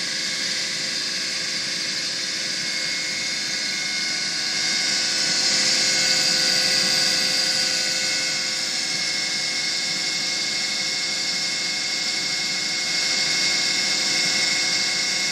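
Bobcat SG60 hydraulic stump grinder's cutting wheel spinning freely in the air, with the track loader's engine running to drive it: a steady mechanical whine and hiss, swelling a little a few seconds in.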